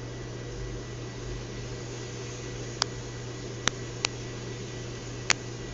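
Steady low hum and fan-like background noise, with four short sharp clicks in the second half, two of them close together.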